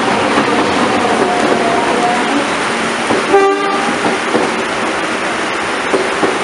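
Passenger coaches running past at speed through heavy rain: a steady rush of wheel and rain noise, with one short train horn toot about halfway through.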